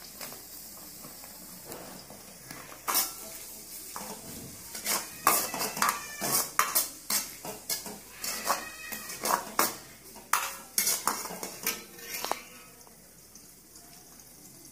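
Steel ladle scraping and clanking against a stainless steel wok as chopped capsicum, chillies and onion are stirred over a gas flame, with a light frying sizzle underneath. The clanks come thick and fast from about three seconds in and die away in the last couple of seconds.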